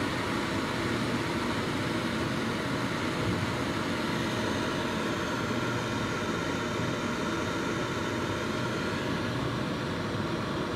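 Glass electric kettle heating water at about 65 °C, a steady hissing noise of the water warming toward the boil.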